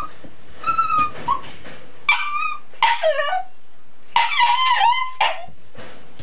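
A young dog whining and yelping in about five high calls whose pitch slides up and down, the longest lasting about a second near the end: a stressed dog wanting to play and interact.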